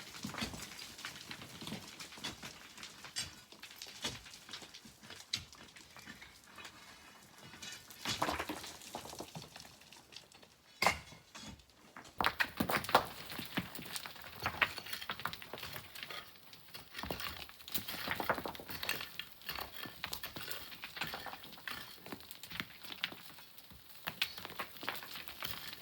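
Loose pebbles and sand clattering and trickling down, many small stones clicking against one another at irregular intervals. One sharp knock comes about eleven seconds in, and the clatter grows denser from about twelve seconds on.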